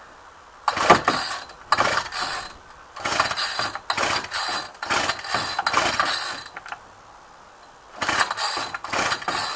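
Recoil pull-starter of a Ryobi two-stroke string trimmer being yanked again and again, each pull a rasping stroke of about a second, with a short pause before the last two; the engine does not catch. The trimmer starts only when primed or fed petrol straight into the carb, a fault that turned out to need a carburettor adjustment.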